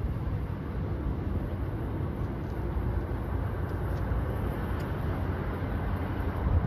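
Steady low rumble of vehicle noise, even throughout, with no horn or clear pass-by.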